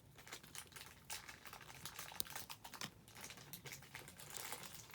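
Faint, irregular small clicks and taps of a small plastic collectible figure and its accessories being handled.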